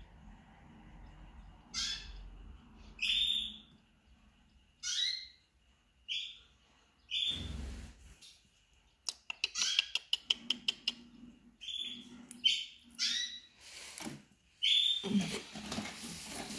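Chinese painted quails calling: short, high whistled calls that fall in pitch, repeating every second or two. About nine seconds in there is a quick run of sharp clicks.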